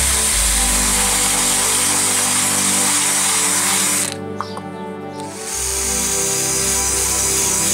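A power tool runs, cutting into wood, over steady background music. The tool stops about four seconds in and starts again about a second and a half later.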